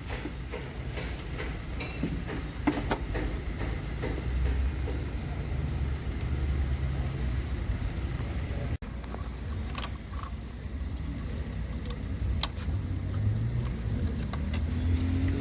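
Steady low rumble, like a vehicle engine running, with a few sharp metallic clicks and taps from handling tools or parts.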